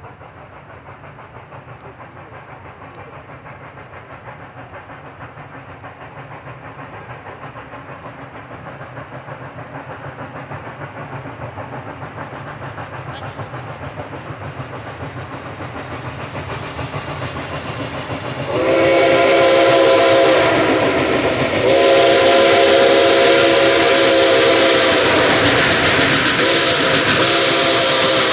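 Nickel Plate Road 765, a 2-8-4 Berkshire steam locomotive, growing steadily louder with a rapid rhythmic pulse of exhaust and running noise. About two-thirds of the way in, its whistle sounds a long chord of several tones over a steam hiss, breaks off briefly, then sounds again.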